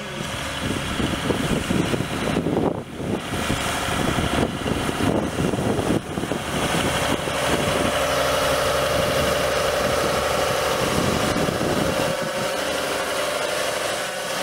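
Fiat DT 110-90 tractor's diesel engine running as the tractor drives up close. A steady higher note joins the engine sound about halfway through.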